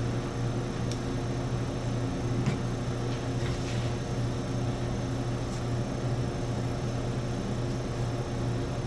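Steady low hum of laboratory equipment, with a few faint taps and rustles as a glass plate is wiped clean with a tissue.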